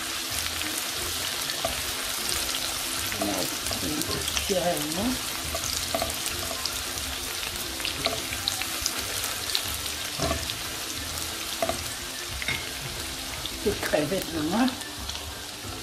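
Chopped spring onions sizzling in hot oil in a wok, a steady hiss with small crackles, stirred with a spatula now and then.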